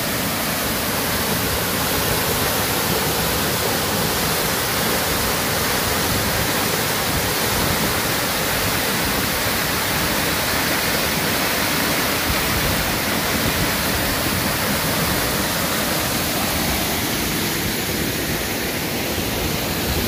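Large waterfall heard close up: a steady, even rush of falling water.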